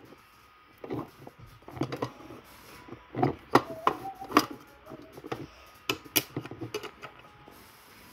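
Handling noise: irregular knocks, taps and rustles of small objects being moved about and put away, some strokes sharper than others.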